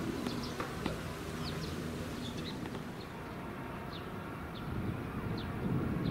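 Small birds chirping in short, high, falling notes, one every second or so, over a steady low outdoor rumble.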